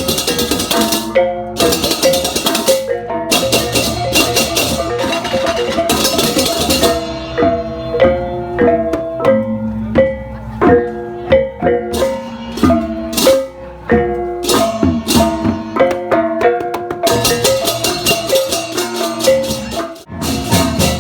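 Balinese gamelan playing: struck bronze gong-chime tones in quick repeating patterns over drums, with bursts of rapid cymbal clashing that drop out about seven seconds in and return near the end.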